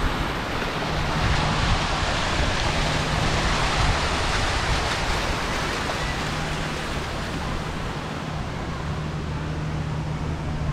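Steady rushing noise with a low hum underneath, easing slightly in the second half.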